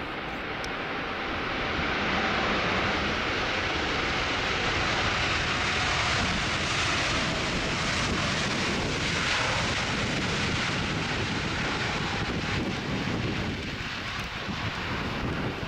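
Jet engine noise of a Boeing 777 freighter with two GE90 turbofans on its landing approach. It swells about two seconds in, holds steady, then eases a little.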